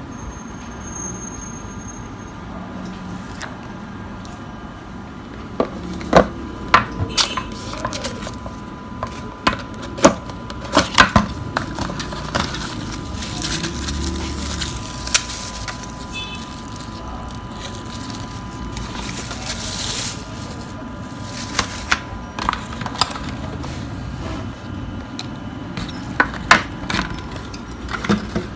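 Unboxing handling noises: a cardboard smartphone box and its paper leaflets rustling, with scattered sharp clicks and taps as the phone and its accessories are picked up and set down. A faint steady whine runs underneath.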